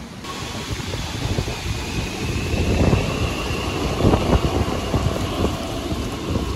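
Solaris Tramino low-floor tram running past and pulling away, its drive giving a faint high whine that rises a little. Gusts of wind buffet the microphone.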